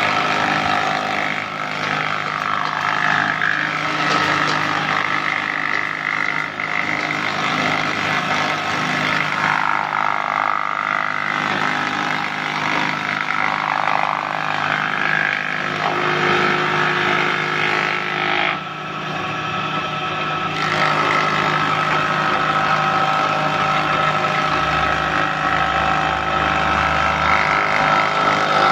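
Table-mounted electric wood planer running steadily, its cutter head planing boards as they are fed through. The sound dips briefly about two-thirds of the way through, then returns to full level.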